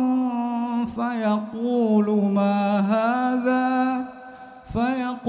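A man's voice reciting the Quran in slow, melodic tartil style, drawing out long held notes that waver in pitch. Near the end he breaks off briefly, takes a breath and starts again.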